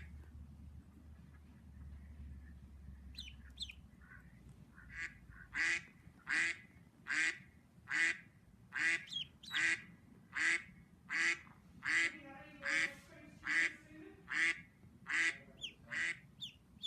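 Duck quacking over and over, about one call a second, starting about five seconds in, with a few faint high peeps among them.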